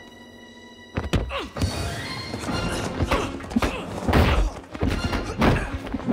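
Fight-scene impacts: a rapid string of punch and body-hit thuds over action music, starting abruptly about a second in after a quiet stretch of held, eerie music tones.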